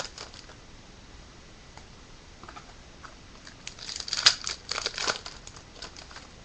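Crinkling and rustling as a trading-card pack wrapper and its cards are handled, with a brief rustle at the start and a dense run of sharp crinkles about four to five seconds in.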